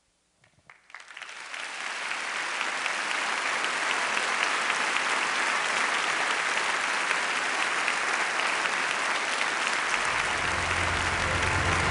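Large audience applauding: a few scattered claps about half a second in swell within a second or two into full, steady applause.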